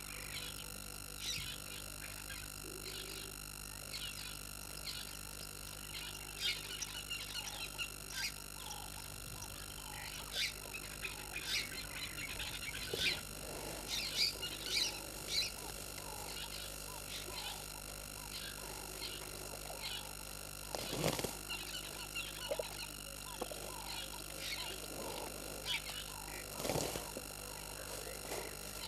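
Frogs calling around a waterhole: many short, irregular chirping croaks. Elephants feeding close by add rustling and crunching as they pull up grass, loudest twice, about two-thirds of the way in and again near the end.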